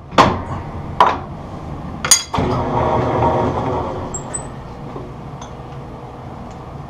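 Three sharp metal clanks as the South Bend lathe's back gear is engaged, then the lathe starts and runs in back gear at low spindle speed with a steady geared hum.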